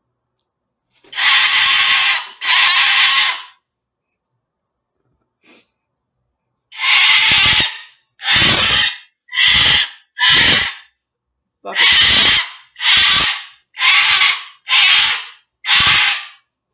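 Moluccan cockatoo screeching, really loud: two long screeches, then after a pause a run of nine shorter screeches, each under a second.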